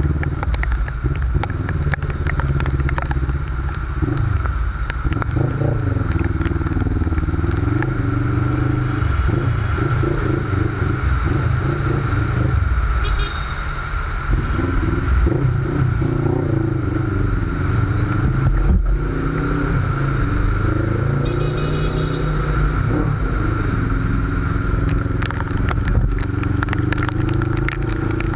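Suzuki GS500's air-cooled parallel-twin engine running on the move, its pitch rising and falling over and over as the throttle is opened and closed in stop-and-go riding.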